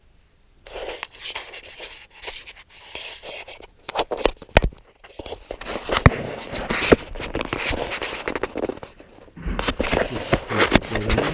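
Handling noise: objects being scraped and rubbed, with several sharp clicks and knocks.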